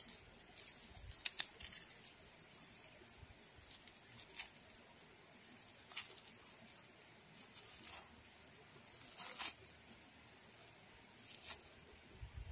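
Knife slicing a plastic-wrapped compressed rice cake (kupat), the plastic wrapper crinkling and crackling in short, scattered bursts as the pieces are cut off into the sauce.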